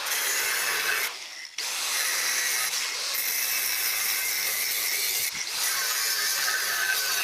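Homemade machine tool running with a harsh, steady mechanical noise that drops out briefly about a second in.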